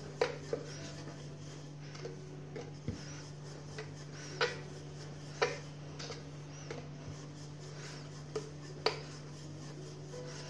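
Wooden rolling pin rolling out samosa dough on a wooden board, with scattered sharp taps and clicks, about eight of them at uneven intervals, as the pin and the hands touch down. A steady low hum runs underneath.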